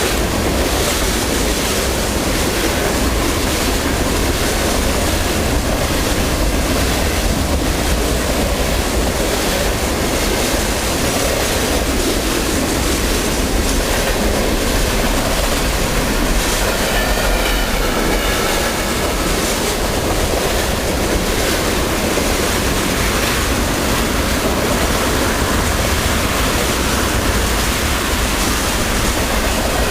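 Freight train cars rolling past on the rails, a steady loud rumble of wheels and cars, with a faint high wheel squeal for a few seconds around the middle.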